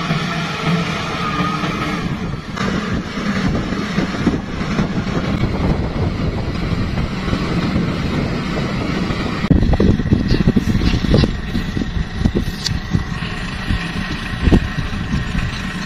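LiuGong wheel loader's diesel engine running as the loader works a dirt pile, with wind rumbling on the microphone. The sound changes character about nine and a half seconds in.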